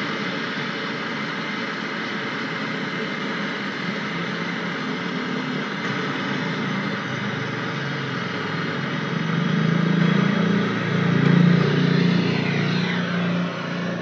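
Handheld gas torch burning with a steady hiss as its flame heats a copper pipe joint on a refrigerator compressor. A louder low rumble joins about nine seconds in, and the sound cuts off abruptly near the end.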